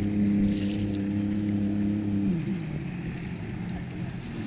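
Watercraft engine running at a steady pitch, then dropping in pitch about two seconds in as it eases off, over wind and water noise.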